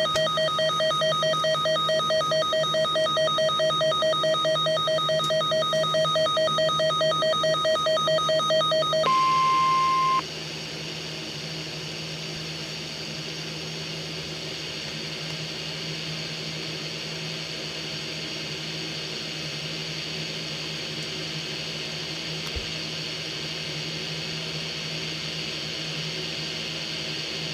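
NOAA Weather Radio broadcast during a failed required weekly test. A buzzy electronic tone pulses rapidly for about nine seconds, then a single steady beep lasts about a second and cuts off. After that only steady radio hiss (dead air) remains.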